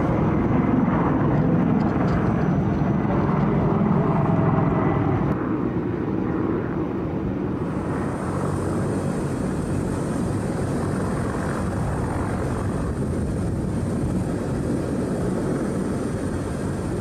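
Mi-24 attack helicopter flying past, a steady heavy rotor and engine noise that eases a little about five seconds in; a thin high whine joins about halfway through.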